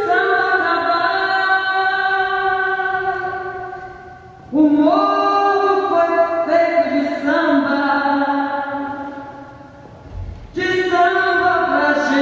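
Music: slow, choir-like singing of long held notes with no beat, in phrases that fade away and start again twice.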